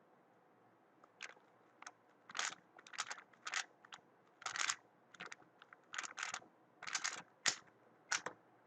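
Weilong WRM 2019 speedcube being turned fast during a solve: a rapid, irregular run of plastic clicks and scrapes as the layers turn, starting about a second in.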